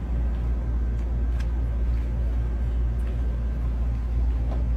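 A steady low rumble, unbroken and without speech, with a couple of faint ticks.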